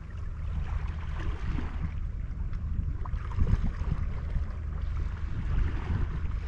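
Wind rumbling and buffeting on the microphone, unevenly, over a steady wash of the sea.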